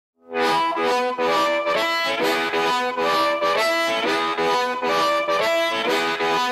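Blues harmonica opening a song with a rhythmic pulse of chords, about two a second, that starts abruptly about a quarter second in after silence.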